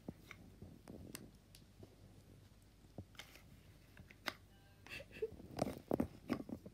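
A sleeping brown dog moving its jaws through a bad dream: quiet, scattered mouth clicks and smacks that come thicker and louder over the last two seconds, with a short squeak about five seconds in.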